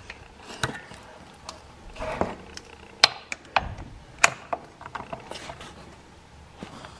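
Ratchet wrench on a socket extension clicking, with scattered sharp metal clicks and knocks, as the 13 mm oil drain plug is worked loose through the skid plate.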